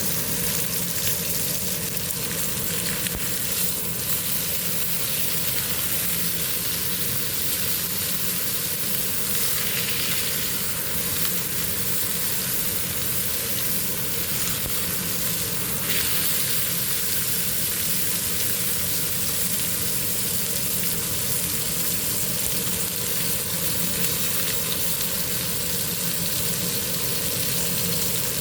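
Steak frying in a hot pan, sizzling steadily.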